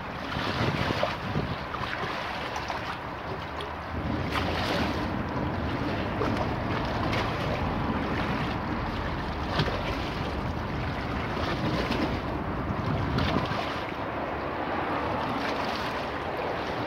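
Choppy river water splashing and slapping against granite embankment steps, with wind buffeting the microphone in gusts, strongest through the middle.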